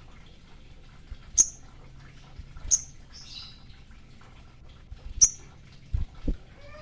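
A sogon songbird giving three sharp, very high chirps a second or two apart, each a quick downward flick, with a brief scratchy chatter just after the second. Two dull low thumps come near the end.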